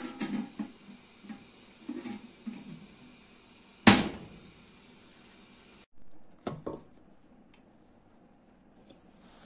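Metal lid being set and settled on a large cooking pot: a few light knocks, then one sharp metallic clank with a short ring about four seconds in. A couple of duller knocks follow near the end.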